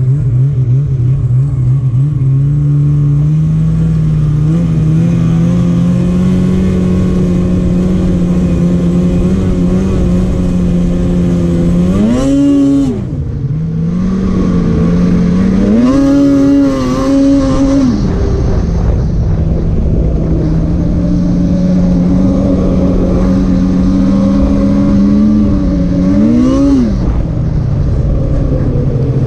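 Polaris Patriot 850 two-stroke twin snowmobile engine running under way, its pitch creeping slowly upward. The revs rise and drop back three times: about twelve seconds in, again a few seconds later where they hold briefly higher, and once more near the end.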